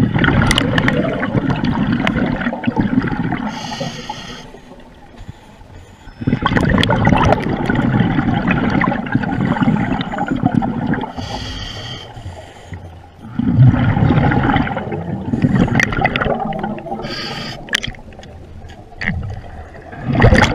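Scuba diver breathing through a regulator underwater: long rushes of exhaled bubbles about every seven seconds, with a short hiss of inhaled air in the quieter gaps between them.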